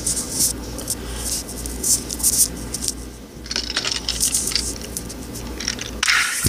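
Handling noise: irregular scratching, rustling and small clicks close to the microphone over a steady low rumble, with a louder scrape near the end.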